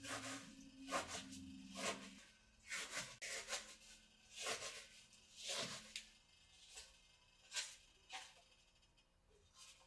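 Diced red onion being handled on a cutting board: crisp, irregular rustles and taps, one or two a second. A faint low hum runs under the first couple of seconds.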